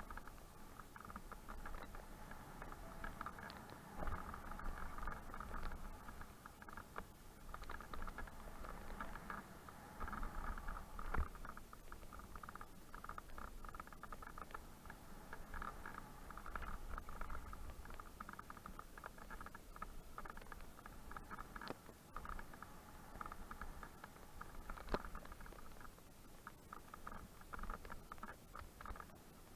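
Mountain bike rattling down a rough gravel and dirt trail: a continuous fast clatter of tyres, chain and frame over stones, over a low rumble, with a few louder knocks, the loudest about eleven seconds in.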